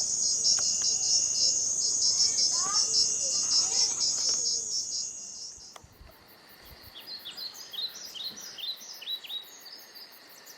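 A dense chorus of insects trilling in fast, high pulses, with a few faint bird chirps underneath. It cuts off about six seconds in to quieter countryside ambience, where a bird sings a run of short, downward-sweeping high notes, about two a second.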